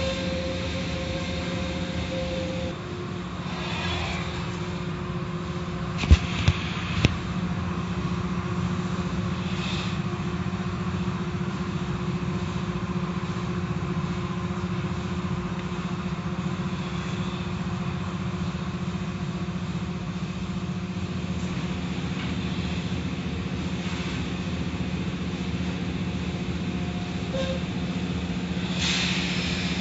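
Automatic tunnel car wash running: a steady machine hum over the hiss of water spraying and soft-cloth curtains and brushes sweeping over a car's body, with three sharp knocks about six to seven seconds in.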